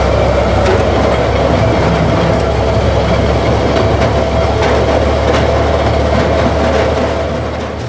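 Train running on rails: a steady heavy rumble and rushing noise with a faint steady tone above it. It starts suddenly and fades near the end.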